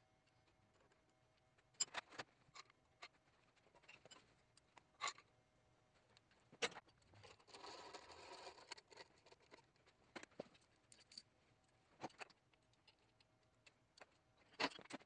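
Hand wrench and engine parts clicking and tapping against a Mitsubishi 4G63 engine as it is taken apart, the strikes scattered and far apart, with a short rasping stretch of about a second and a half just before the middle.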